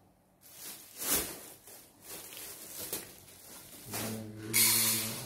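Plastic bag rustling and crinkling as it is picked up and handled. About four seconds in, a steady low hum starts and a loud hiss follows briefly.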